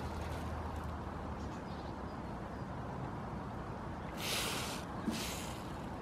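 Goat browsing in a thorny shrub: two short rustles of twigs a little past halfway, with a sharp click between them, over a steady low background rumble.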